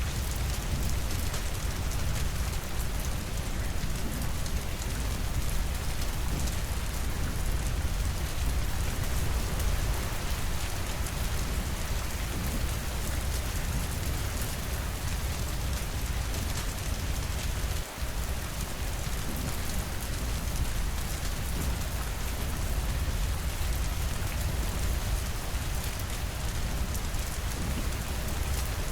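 Steady, even rainfall pattering on a surface, with a deep low rumble underneath. The sound dips briefly once, about eighteen seconds in.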